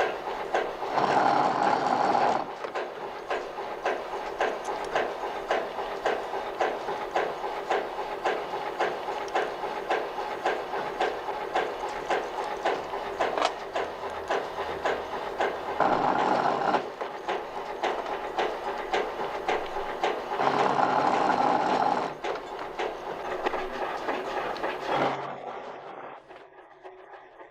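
Small-workshop metalworking machinery running with a fast, even mechanical clatter. Three louder spells of harsher noise come about a second in, around 16 s and around 21 s, like the machine working metal. The machinery stops about 25 seconds in.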